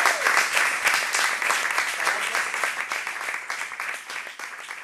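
Audience applauding at the end of a live song, the clapping dying away gradually.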